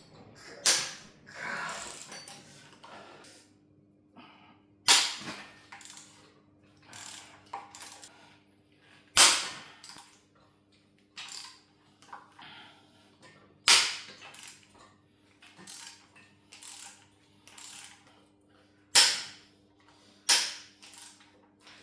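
Sharp knocks and clacks of tools and engine parts being handled during a workshop engine teardown, the loudest about every four to five seconds with lighter clicks between.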